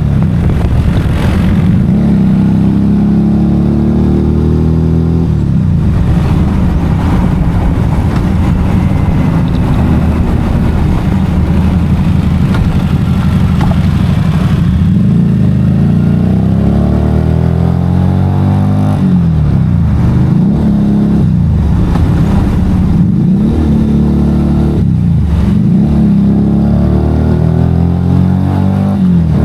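Motorcycle engine running on the road, its pitch repeatedly climbing and dropping back as it accelerates and changes gear.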